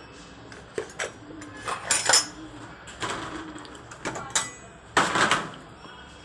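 Freshly washed dishes and utensils from a dishwasher being handled, clinking and clattering against each other in a string of separate knocks, the loudest about two and five seconds in.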